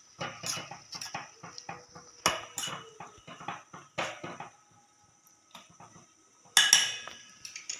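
A spoon scraping and clinking against a cooking pot as herbs are stirred and pressed down in the water: a run of irregular clinks and scrapes, a quieter pause, then a louder clatter near the end.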